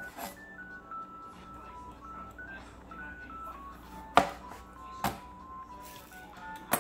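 A chef's knife slicing through a zucchini and knocking onto a plastic cutting board, a few sharp knocks with the loudest about four seconds in. Background music runs throughout: a simple melody of single plain notes.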